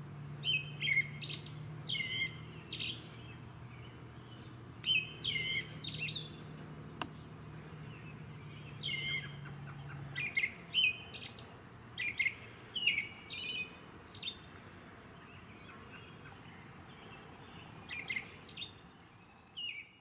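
American robin singing: short phrases delivered in clusters separated by pauses. A low steady hum runs underneath and stops about halfway through.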